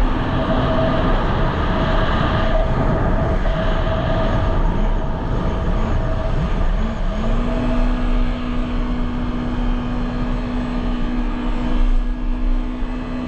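Jet ski engine running under way, with heavy rushing wind noise. Its pitch wavers for the first half, then climbs about halfway through and holds steady.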